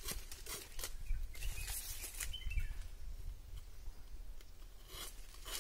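Coconut leaflets drawn in quick strokes against the rim of a metal bowl, stripping the leaf blade off the midribs: a series of short scraping swishes, bunched in the first two seconds and again near the end.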